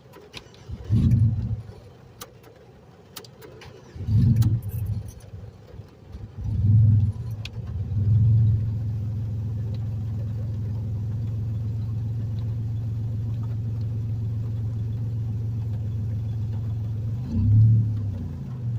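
A wet car engine being coaxed through a hard start with the gas pedal pumped: it catches in short revving bursts that die away three times, then about eight seconds in it keeps running and settles into a steady idle, blipped once more near the end.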